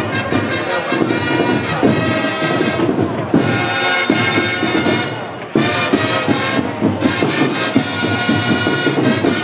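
Festival band music for a flag-throwing display: long held wind-instrument notes over steady drumming, with a brief break about halfway in.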